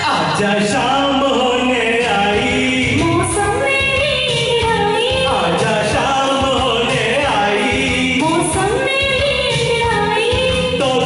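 A man and a woman singing a duet through microphones over a recorded backing track, with long held, gliding notes.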